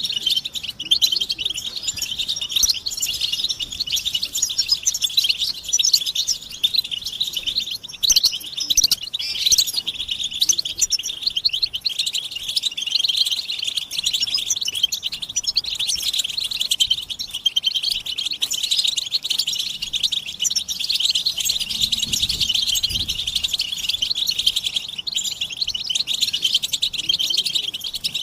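A group of European goldfinches twittering and calling nonstop: a dense chorus of rapid, high chirps overlapping one another, with no pauses.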